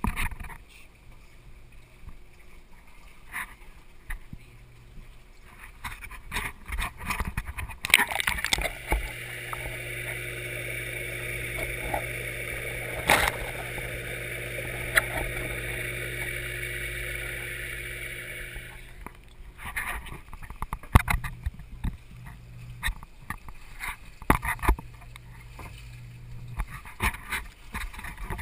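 Water in a floating oyster upweller heard through a GoPro: splashing and knocks as the camera is handled at the surface, then for about ten seconds in the middle a steady, muffled water rush with a low hum while the camera is underwater, before the splashing and knocks return.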